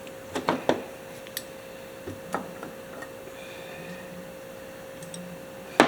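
Light clicks and taps of small metal carburetor parts being handled during disassembly, a few close together in the first couple of seconds and a sharper click near the end, over a steady faint hum.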